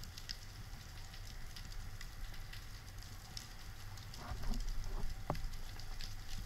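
Underwater reef ambience: a steady crackle of fine clicks, typical of snapping shrimp on rocky seabed, over a low rumble of water noise. A few louder knocks come about four to five and a half seconds in.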